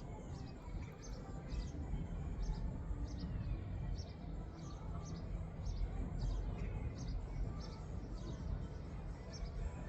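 Wind rumbling steadily on the microphone, with short high chirps repeating about two to three times a second in the background.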